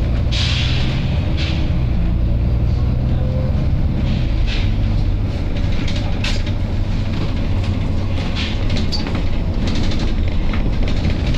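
Volvo B9TL bus's diesel engine running steadily with a low rumble, with a short hiss of air from its air system about half a second in and several briefer hisses or clicks after.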